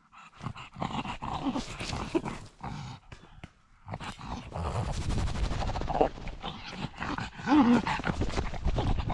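A pug running over leaf litter, heard close up from a camera on its harness: its snorting breath over rustling leaves and knocks of the bouncing mount. The noise gets busier and louder about four seconds in as it runs faster.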